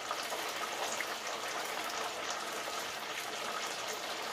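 Onion rings frying in hot oil in a Hamilton Beach electric deep fryer: a steady bubbling sizzle with fine crackling, the rings nearly done.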